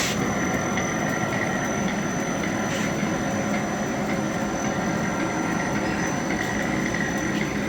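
Packaging-film printing machine running at a steady pace, a continuous mechanical whir with a thin high whine, with a brief click about three seconds in.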